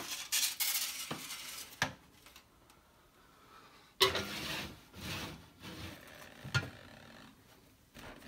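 Metal sheet pan knocking and scraping as it is lifted off a stovetop and slid onto an oven rack: a few sharp knocks in the first two seconds, then a sudden, louder clatter and scrape about four seconds in, and another knock later.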